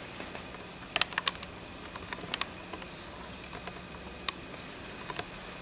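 Small, sharp, irregular clicks of Miyuki Delica glass cylinder beads knocking together as fingers handle a strip of peyote-stitch beadwork and its thread. A quick run of about five clicks comes about a second in, then a few more around two seconds and single ones later.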